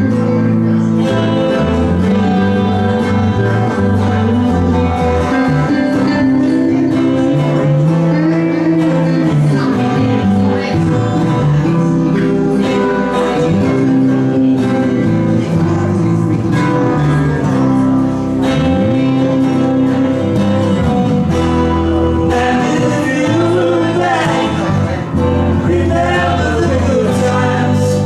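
A small live band playing a country-style song on acoustic guitars with a bass line, with voices singing over it.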